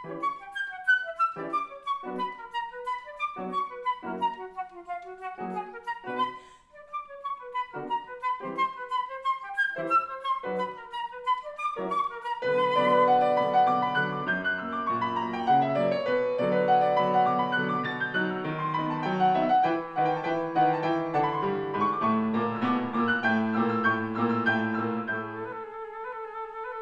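Flute and grand piano playing a classical polonaise. The flute plays quick melodic runs over short, detached piano chords, then a little under halfway through the piano fills in with fuller, sustained chords beneath it. Near the end the piano stops and the flute carries on alone.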